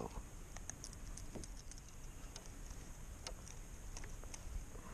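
Faint, scattered small ticks and clicks of hands working a circle hook out of a channel catfish's lip, over a low steady hiss.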